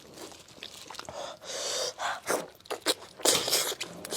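Close-miked eating: wet chewing and sucking or slurping mouth noises with sharp breathy sounds, loudest about three seconds in.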